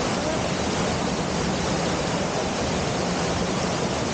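Waterfall rushing: a loud, steady roar of falling water that holds even throughout.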